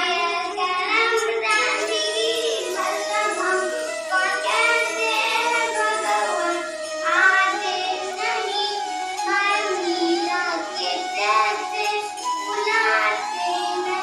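Recorded song: a singing voice over instrumental backing with steady held notes.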